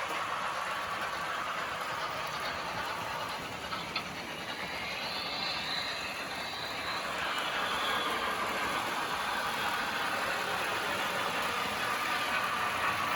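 Märklin model train running on its track: a steady hum of the small motor and wheels on the rails, with a single click about four seconds in.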